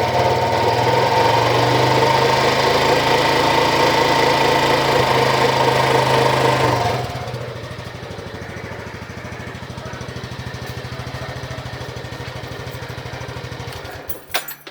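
Honda Biz 125's single-cylinder engine running, loud for about seven seconds and then dropping to a quieter, steady idle, with a sharp click near the end. The owner hears in it an abnormal noise, like something catching, that comes and goes.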